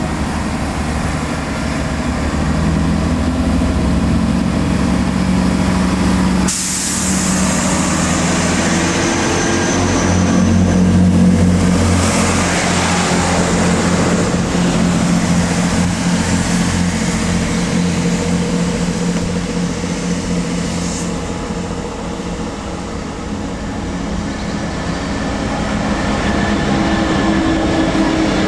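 A train running through the station: a steady low engine hum under rumbling wheel and rail noise. The sound changes abruptly about six and a half seconds in.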